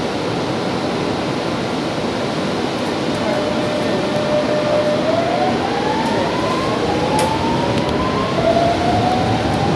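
Metro train pulling away and accelerating, heard from inside the car: a steady running rumble with an electric traction-motor whine that rises in pitch in several steps.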